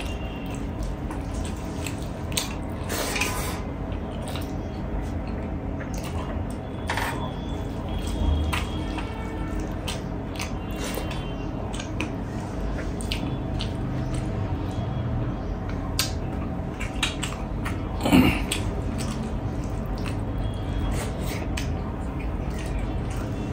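Close-up eating sounds: wet chewing, lip smacks and small clicks as a meal of pork leg pickle and rice is eaten. A single louder knock comes about 18 seconds in, over a steady low hum.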